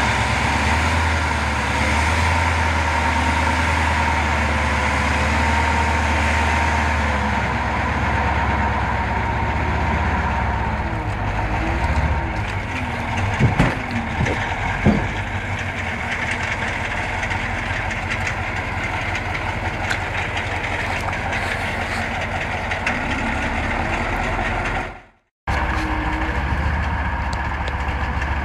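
KrAZ truck's heavy diesel engine running steadily under load as the truck crawls through deep mud, with a few sharp knocks about halfway through. The sound drops out completely for a moment near the end.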